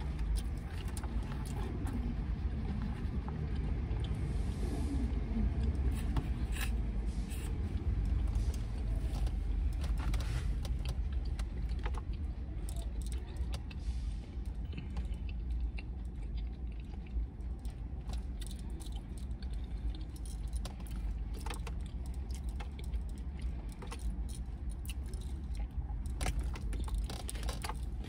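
Someone eating in a car: scattered clicks and light clatter from a fork and food packaging over a steady low rumble.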